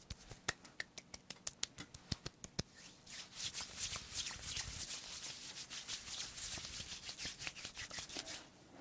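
Bare hands patting together in quick, light, irregular taps. From about three seconds in, the palms rub against each other in a steady soft hiss.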